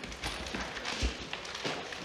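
A packet of Sapporo Ichiban shoyu instant ramen squeezed in the hands, its plastic wrapper and the dry noodle block inside crackling in irregular clicks.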